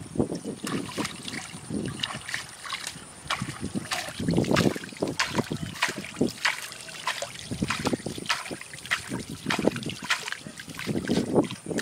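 Shallow muddy water being splashed and sloshed by hand and with a steel plate, in repeated irregular splashes.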